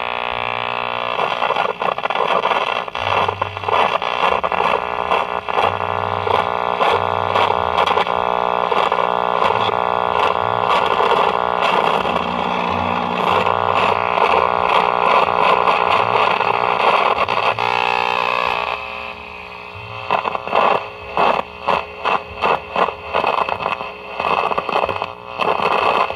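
Remler vacuum-tube radio's speaker putting out loud static and hum with no clear station, then a run of about a dozen short crackling bursts near the end. Reception is horrific: the plates of the tuning condenser are touching, which is probably killing the signal.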